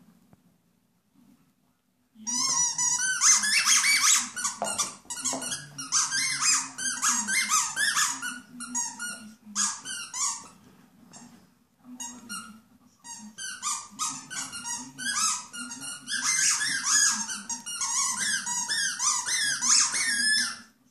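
A small dog chewing a squeaky toy, setting off rapid runs of short, high-pitched squeaks, with a pause of a couple of seconds near the middle.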